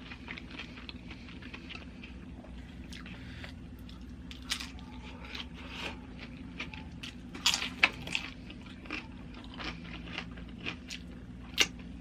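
Close-up chewing and crunching of tortilla-chip nachos, with irregular sharp crunches, the loudest a quick cluster about seven and a half seconds in and one more near the end. A steady low hum runs underneath.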